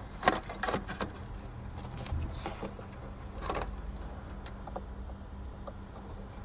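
Scattered light clicks and scrapes of a pick hook and gloved hands working at the plastic locking tab of the DPF differential pressure sensor's electrical connector, prising it back to unplug it. A faint steady hum lies underneath.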